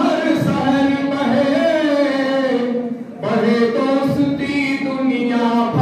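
A man singing a Hindi patriotic song solo in long held, gliding notes, with a brief breath pause about three seconds in.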